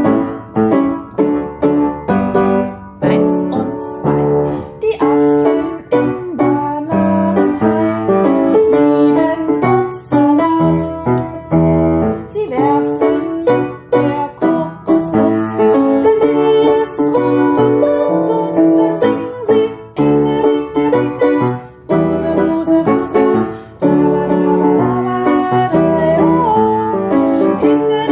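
Piano playing a cheerful children's song, melody over steady chords with a regular beat.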